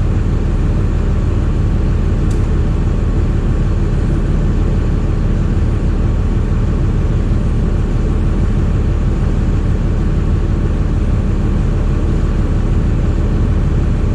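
An engine running steadily at a constant speed, a loud, even, low rumble with no change in pitch.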